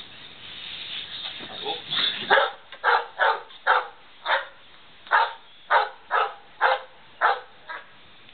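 A dog barking in play, about ten short sharp barks roughly half a second apart, starting about two seconds in after some scuffling noise.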